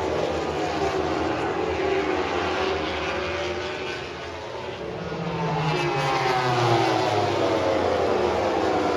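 A pack of MotoGP racing motorcycles passing at high revs, several engine notes falling in pitch as they go by. The sound eases briefly about halfway through, then a second group swells in louder.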